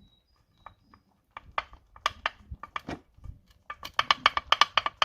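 A series of sharp metallic clicks and knocks, a few at first and then a quick run of them near the end, as steel suspension parts and tools are handled and knocked together.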